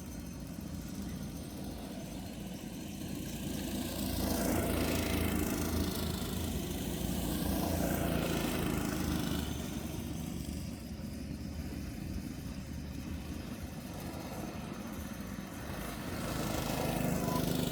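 Go-kart engines running on a track, swelling and fading a few times as karts come and go.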